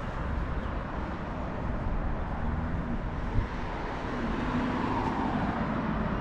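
Road traffic: cars passing on the street, a steady rumble and hiss, with one car's engine coming up a little louder in the second half. A brief knock about three and a half seconds in.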